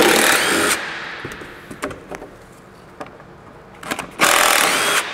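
A power tool runs in two short bursts, one at the start and one about four seconds later, each under a second long, backing out the fasteners of a cover. A few light clicks come between the bursts.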